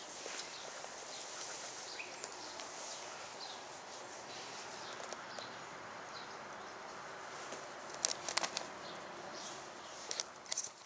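Outdoor background with faint, scattered bird chirps. There is a quick cluster of sharp clicks and knocks about eight seconds in, and another near the end.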